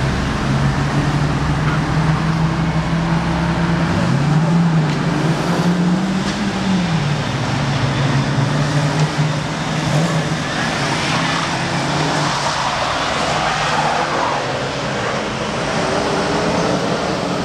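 Cars driving hard on a wet city road, engines revving: the engine note rises in pitch about four seconds in, rises again and falls back, over a steady rush of engine and tyre noise.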